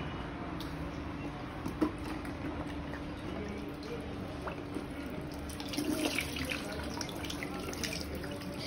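Water poured from a small plastic cup, splashing and dripping into a plastic basin of water with floating toys, with a cluster of louder splashes about six seconds in.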